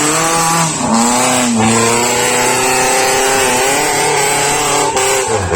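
Off-road 4x4 jeep engine revving hard under load as it climbs the track. It runs loud, its pitch rising and falling, with a drop about a second and a half in and another near the end.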